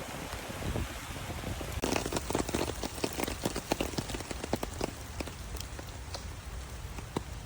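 Rain falling, with many separate drops striking close by over a steady hiss of rain; the drop strikes become dense and louder about two seconds in.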